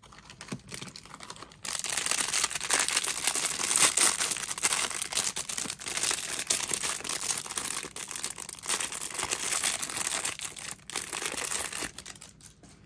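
Thin clear plastic wrap crinkling and rustling as hands unwrap a plastic toy figure, starting after a few light handling taps about two seconds in and dying away near the end.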